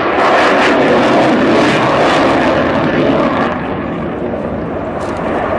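F-16 Fighting Falcon jet engine roaring loudly during a low display pass, easing off a little about three and a half seconds in.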